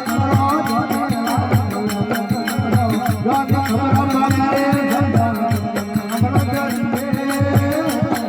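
Rajasthani desi bhajan music: a steady drum beat under a sustained drone and melody.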